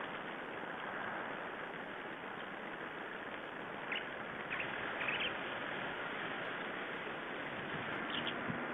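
Steady background hiss with a few short, high calls from small songbirds at a winter feeding spot: one about four seconds in, a couple around five seconds, and a pair near the end.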